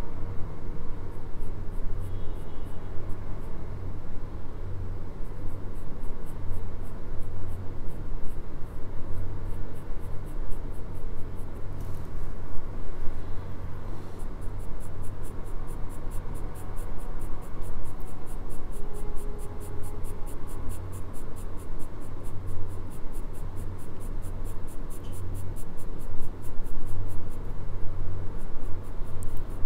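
Graphite pencil shading on drawing paper: a continuous scratching made of many short, rapid strokes.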